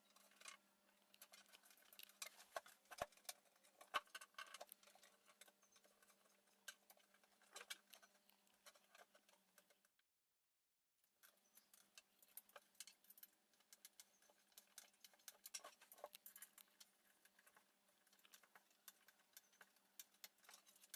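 Near silence broken by faint, scattered clicks and small taps of an Allen key and machine screws being handled and turned as the panels of a Dobsonian telescope base are screwed on, over a faint steady hum. The sound cuts out completely for about a second midway.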